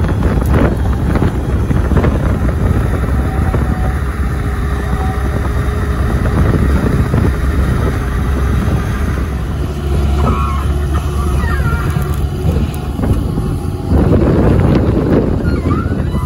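Bobcat skid-steer loader's engine running under load as it lifts and carries round bales on a bale spear, with a louder stretch near the end.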